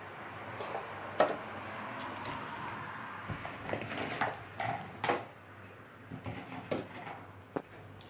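Small knife scoring chestnut shells and the chestnuts being handled: scattered clicks and knocks, the sharpest about a second in.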